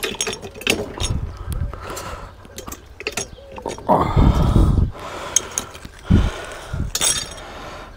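Steel mower lift being levered up under a lawn tractor: repeated clicks and metal knocks from its linkage and pins, with a longer, louder strained noise about four seconds in and a shorter low thud near six seconds.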